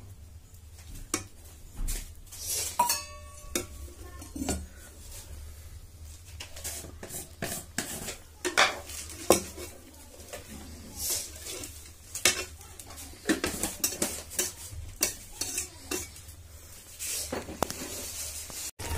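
Metal spatula clinking and scraping against a steel kadhai as a curry is stirred, in many short irregular knocks, one ringing briefly about three seconds in. A faint sizzle of the simmering curry lies under it.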